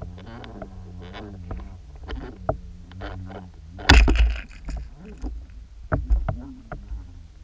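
Underwater sound through an action camera's housing: a low wavering drone with scattered clicks and knocks as large jointed lures are retrieved past the camera. The loudest is a sharp knock and rush of noise about four seconds in, as the trout-pattern lure and its line come close to the lens.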